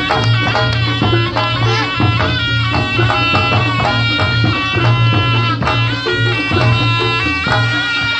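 Reog Ponorogo accompaniment music: a reedy, wavering shawm melody played over hand-drum strokes and a steady low tone.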